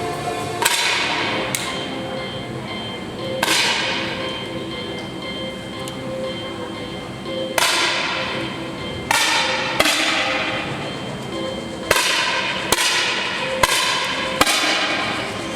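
Air rifle shots, about ten sharp cracks at irregular intervals, each with an echoing tail, as several rifles fire on a range.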